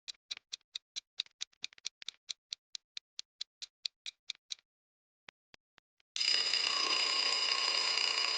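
Quiz countdown timer sound effect: fast, even clock ticking, about four to five ticks a second, that stops about four and a half seconds in. A few scattered ticks follow, then a steady alarm ring starts about six seconds in to signal that time is up.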